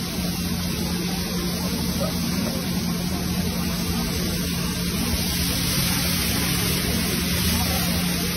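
Fish deep-frying in wide pans of hot oil, a steady sizzle, with a low steady hum underneath.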